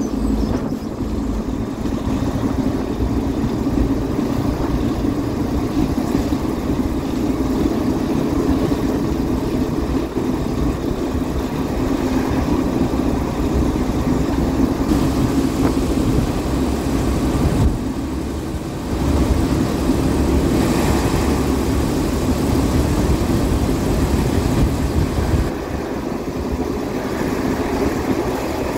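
A vehicle engine running steadily, a continuous rumble that dips briefly about eighteen seconds in and eases a little near the end.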